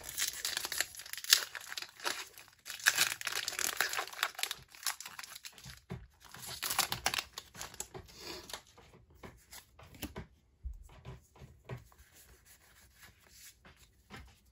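Foil wrapper of a Pokémon TCG booster pack being torn open and crinkled, in dense crackling bursts for the first eight seconds or so, then only faint rustles.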